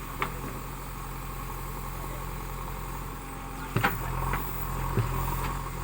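JCB 3DX backhoe loader's diesel engine running steadily at low revs, with a few sharp knocks: a double knock a little under four seconds in is the loudest.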